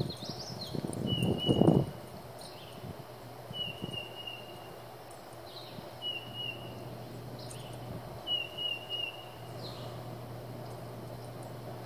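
Birds calling: a steady whistled note, each a little under a second long, repeated about every two seconds, with short downward-slurred notes in between. A brief loud rush of low noise about a second in.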